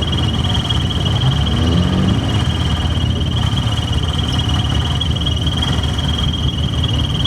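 Old car engines running with a low exhaust rumble as cars drive in, one rising briefly in revs about two seconds in. A steady high-pitched drone runs underneath.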